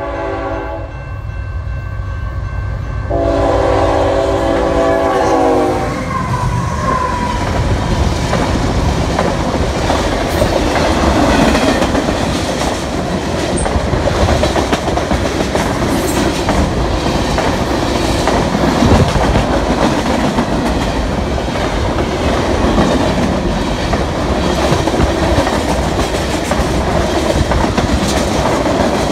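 A freight locomotive's multi-tone horn blows a short blast and then a longer one, the pitch dropping at the end of the second as it passes. The freight cars, covered hoppers and boxcars, then rumble and clickety-clack steadily past close by.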